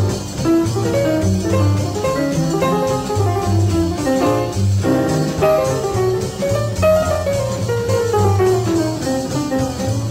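Jazz music: a guitar playing runs of notes over a steady bass line.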